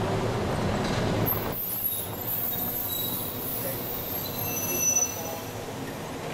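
Red articulated trolleybus passing close by, followed by a thin, high-pitched squeal made of several steady tones.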